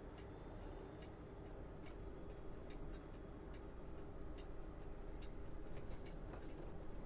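A truck's indicator flasher clicking in a steady run of ticks, two or three a second, over the low drone of the semi's engine heard from inside the cab.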